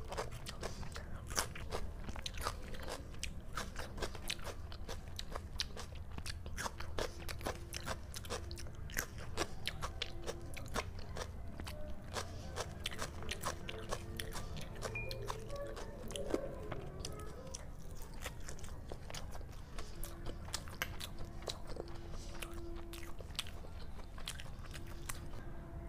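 Close-miked chewing and biting: crisp crunches of raw onion slices and many short wet mouth clicks, coming densely throughout.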